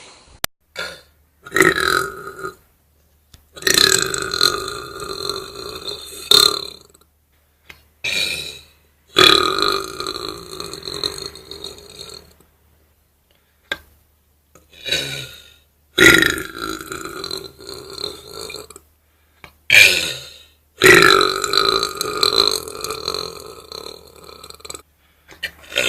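Loud belches, one after another, several drawn out for three to four seconds, with short silent gaps between them.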